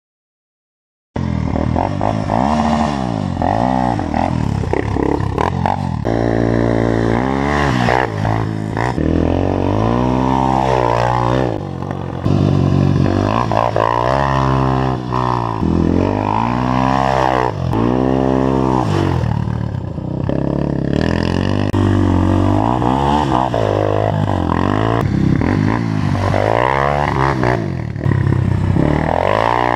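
Single-cylinder four-stroke sport quad engine running hard under load, revving up and dropping back again and again as the quad accelerates, shifts and slows for corners. It starts about a second in, after silence.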